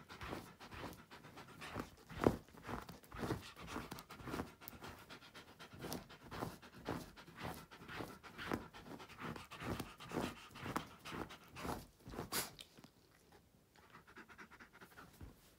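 A wolf dog breathing quickly and rhythmically, about three to four breaths a second, with its nose down in the bedding. The breathing stops about twelve seconds in, leaving only faint sound.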